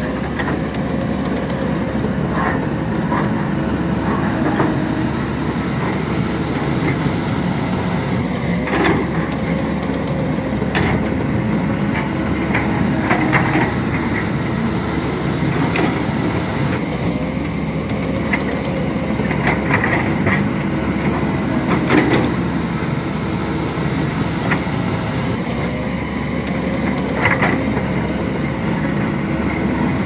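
Heavy diesel earthmoving machinery, excavator and bulldozers, running steadily, with a few sharp knocks scattered through.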